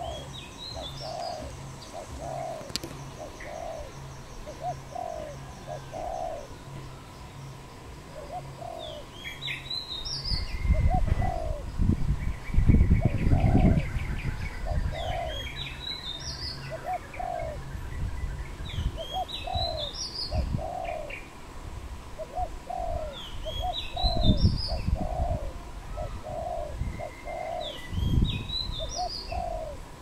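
Spotted doves cooing in a steady run of low notes, with other small birds chirping in higher phrases every few seconds. A brief flutter of wings comes at the very start, and a few bursts of low rumble come in the middle and near the end.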